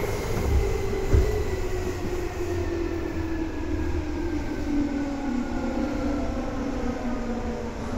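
Seibu 2000 series electric train running, heard from inside the car: the traction motor whine falls steadily in pitch as the train slows, over the rumble of the wheels, with two low rail-joint thumps in the first second or so.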